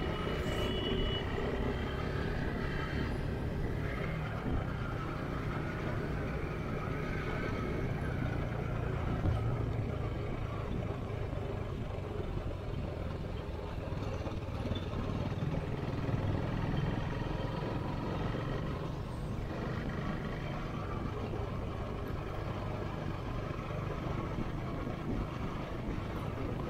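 Motorcycle running steadily at low cruising speed, heard from the rider's seat: a continuous engine and road noise that holds the same level throughout.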